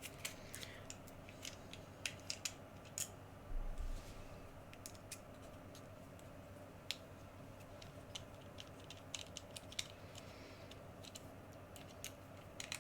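Faint, irregular clicks and small taps of a small screwdriver backing out the two screws that hold a lightsaber sound core together, with one duller bump a few seconds in.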